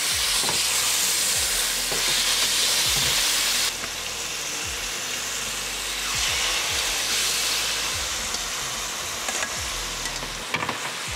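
Marinated pork neck slices sizzling in a hot frying pan as they are laid in and begin to fry. The sizzle is loud and steady, drops a little about four seconds in, and a few light clicks come near the end.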